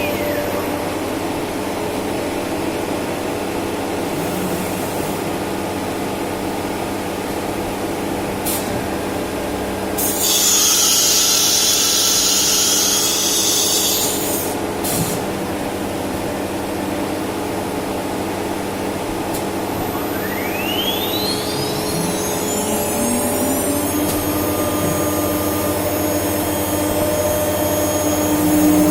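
CNC router with an automatic tool changer running over a steady machine hum. The spindle's whine falls away at the start, a hiss of about four seconds comes around ten seconds in, and from about twenty seconds the spindle whine rises and levels off, as it does when spinning back up after a tool change.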